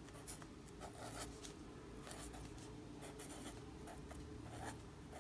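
Zebra Mildliner marker writing on planner paper: faint, short scratchy strokes of the tip across the page, one after another.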